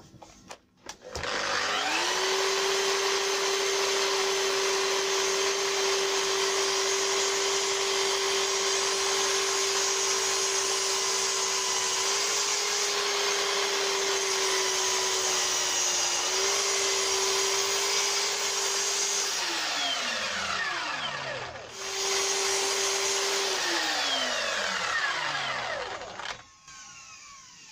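Chop saw motor spins up and runs with a steady whine while its blade cuts across a pine board set to a depth stop, then winds down with falling pitch. It is started again soon after for a shorter run and winds down once more.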